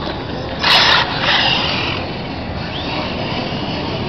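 A radio-controlled touring car's motor whining high as the car speeds off across asphalt, the pitch rising and falling. A short loud rush comes just under a second in.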